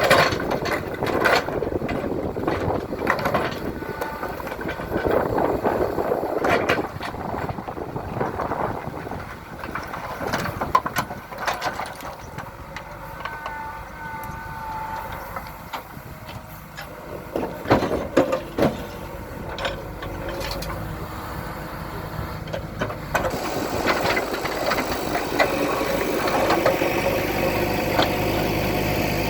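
JCB 3DX backhoe loader's diesel engine working, with scattered loud knocks and clatters of large stones and the bucket striking. Near the end the engine settles to a steadier, even running.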